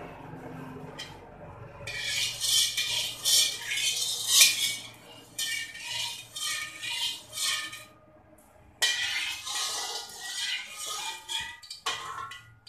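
Slotted metal spatula scraping and stirring around a wok with a little oil, in quick repeated strokes, with a pause of about a second partway through.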